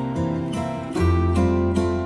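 Background music of plucked acoustic guitar, a run of single notes, with a deeper note coming in about a second in.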